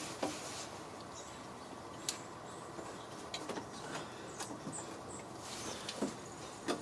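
Light scattered clicks, taps and scrapes of hands working a rubber intake hose and plastic intake parts into place, with a few sharper ticks now and then.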